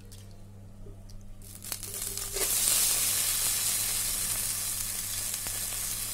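Soaked basmati rice tipped into hot ghee with whole spices, sizzling. The hiss swells suddenly about two and a half seconds in and stays loud and steady.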